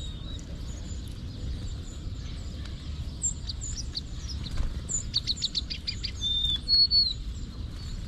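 Small songbirds calling: a string of high, short chips, a fast run of notes about five seconds in, and two short whistles near the end, which are the loudest part.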